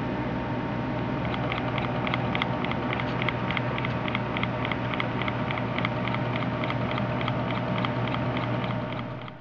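Liney Machine butterfly engine, a small model engine running on air from an aquarium air pump, ticking over with a rapid, regular tick of about four or five a second. The tick starts about a second in, over the steady hum of the aquarium pump, and everything fades out near the end.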